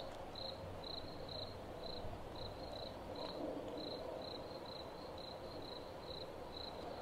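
A cricket chirping steadily, a short high chirp about twice a second, over a faint even background hiss.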